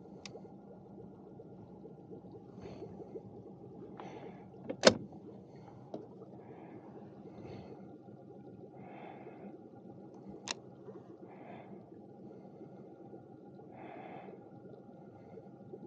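Small fishing boat on the water: a steady low hum with a faint steady whine, soft rustles every second or two, a sharp knock about five seconds in and a smaller click about ten seconds in.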